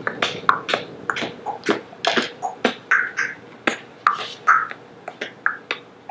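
A boy beatboxing: a rapid, uneven string of mouth clicks and pops.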